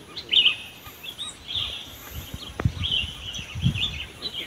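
Small birds chirping, a steady run of short high calls, with a few low thuds, one about two and a half seconds in and more a second later.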